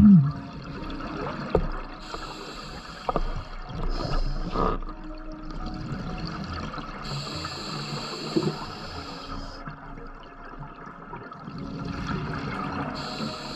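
Scuba diver breathing through an open-circuit regulator, heard underwater. Hissing inhalations of two to three seconds alternate with bubbling exhalations, roughly every six seconds.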